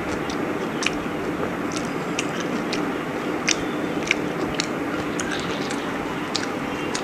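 Close-up eating sounds: someone chewing chicken biryani, with irregular sharp wet mouth clicks, over a steady background hiss and hum.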